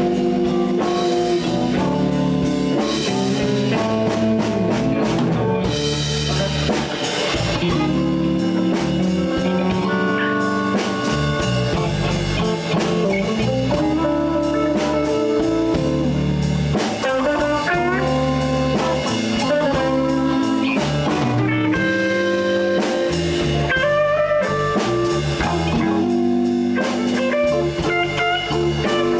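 Live blues band playing an instrumental passage with electric guitar, bass and drum kit, with sustained, bending lead notes over a steady groove.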